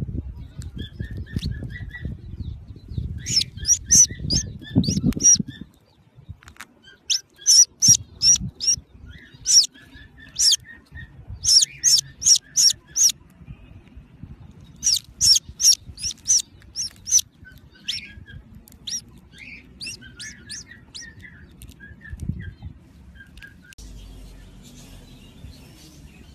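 A newly hatching chick peeping: loud, short, very high peeps in quick runs of four to six, several runs in a row, with fainter lower chirping between them. A low rumble under the first five seconds or so.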